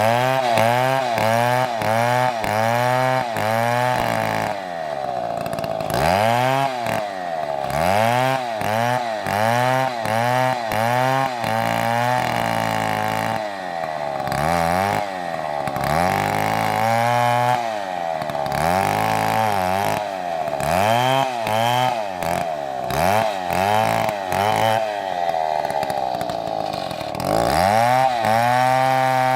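Chainsaw running hard, its engine pitch rising and falling over and over, about twice a second in places, then holding high near the end.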